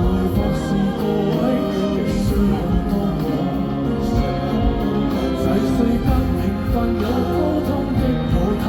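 Live band music in an instrumental passage between sung lines of a pop ballad, with sustained chords over a steady low bass.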